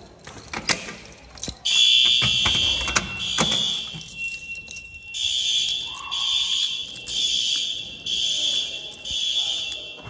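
A few sharp clicks as a school fire alarm pull station is pulled. About two seconds in, the building's fire alarm sounds: a loud, high-pitched electronic tone, steady at first and then pulsing about once a second.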